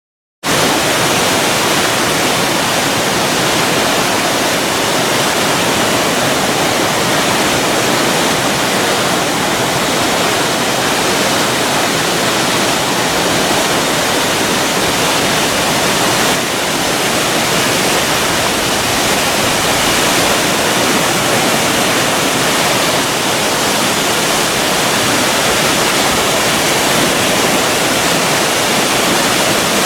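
Zengoro Falls, a mountain waterfall: water pouring down in a loud, steady, even rush.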